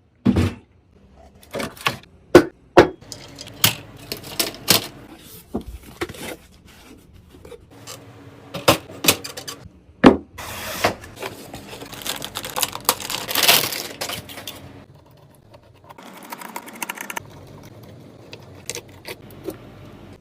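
Irregular sharp clicks and knocks of hard computer parts being handled and fitted during a PC build, with a few seconds of rustling, scraping noise in the middle.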